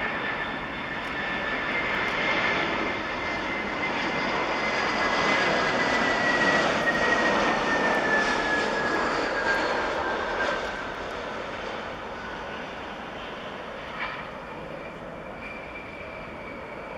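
Airbus A320-family airliner's jet engines on landing approach, passing low and close: a rushing roar with a high whine that slides lower in pitch. It swells to its loudest about halfway through, then falls away quickly.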